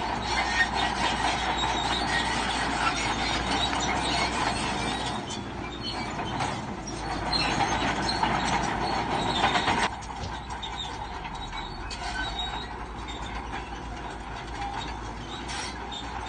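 Shantui crawler bulldozer working, its engine and steel tracks giving a steady metallic clanking and grinding. It is loud for about ten seconds, then drops suddenly to a lower level.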